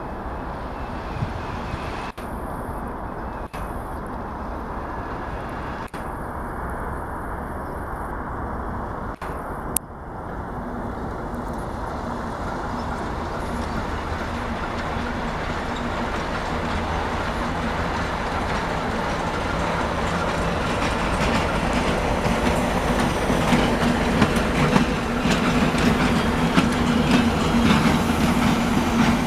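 Passenger train coaches rolling past on the rails, their wheels clacking over the rail joints. The rumble grows louder over the second half, and a steady low hum comes in and strengthens near the end.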